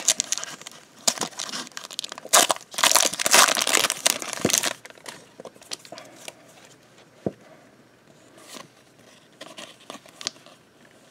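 Foil trading-card pack wrapper crinkling and tearing as it is ripped open, loud for the first four to five seconds. After that, softer rustles and a few faint clicks as the cards are slid and flicked through by hand.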